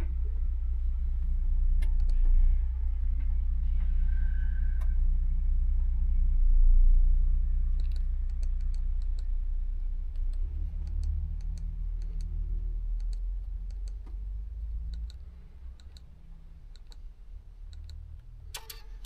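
The Volvo FH's diesel engine idling as a steady low drone that eases off in the last few seconds. A short beep comes about four seconds in, and from about eight seconds on there is a run of small clicks as buttons on the overhead digital tachograph are pressed.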